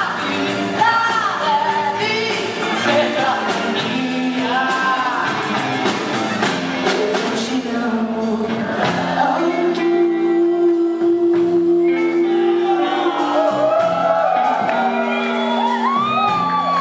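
Live band music with a woman singing lead into a microphone over electric guitar and a full band, her melody bending and holding long notes.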